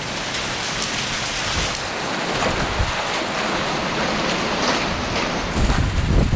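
Heavy wind-driven rain pouring down in a steady hiss during a severe windstorm. Near the end a gust of wind rumbles on the microphone.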